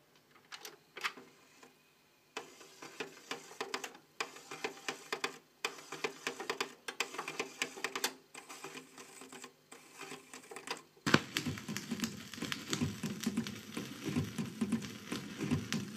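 Crackle and irregular clicks of an old vinyl record's surface noise under the stylus, with no voice or music. The noise jumps louder suddenly about two seconds in, and again about eleven seconds in.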